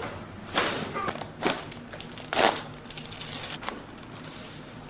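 A chiropractic adjustment: a few short sharp cracks and rustles as the patient's joints are thrust on during the exhale. The loudest come about half a second, a second and a half, and two and a half seconds in, with fainter clicks a second later.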